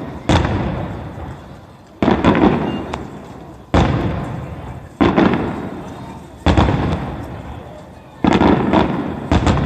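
Aerial fireworks shells bursting one after another, six booms about a second and a half apart. Each sudden bang trails off in a rolling rumble, some with a quick crackle.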